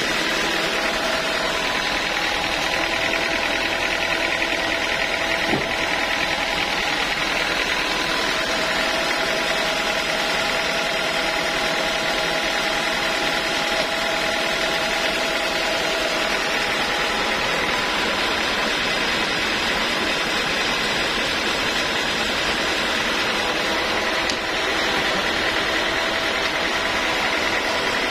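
Homemade band sawmill running steadily with its blade idling, not cutting: an even mechanical drone with a few held whining tones.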